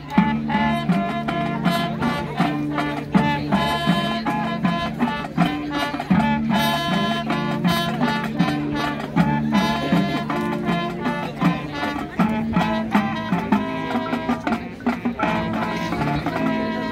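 High school marching band playing a field show: brass and mellophone chords over a moving bass line from the sousaphones, with steady percussion strokes keeping the beat.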